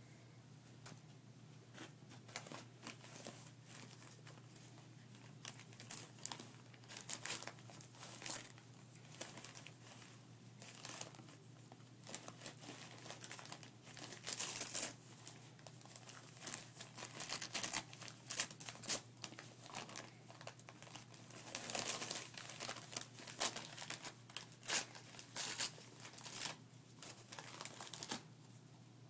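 Wrapping paper crinkling and tearing in irregular bursts as a yellow Labrador puppy rips it off a present with its teeth while pinning it with a paw.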